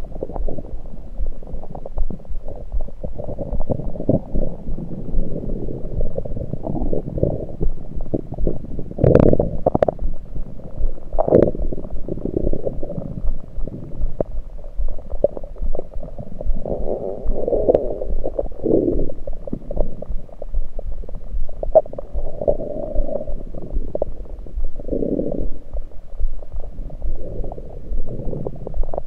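Human stomach and gut gurgling, picked up through an electronic stethoscope on the belly: a continuous run of irregular, muffled bubbling and rumbling, with several louder gurgles scattered through. The uploader puts it down to liquids moving rather than digestion.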